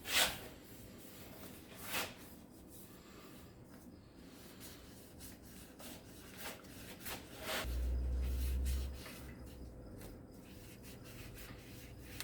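Hand scrubbing with a Scotch-Brite pad at the top of an engine cylinder bore to clear carbon build-up: soft intermittent rubbing with a few sharper scraping strokes, and a low rumble about eight seconds in.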